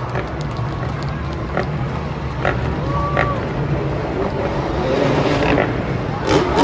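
Vehicle engines rumbling steadily in a large arena, with crowd chatter and a few sharp knocks, the loudest near the end.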